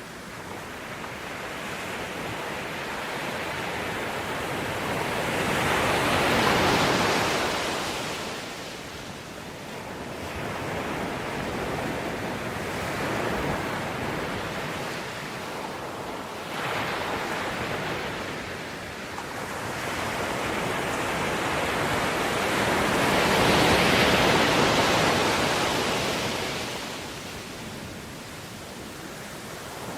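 Ocean waves breaking and washing up the shore, with two big surges of surf about seven seconds and twenty-four seconds in and smaller ones between.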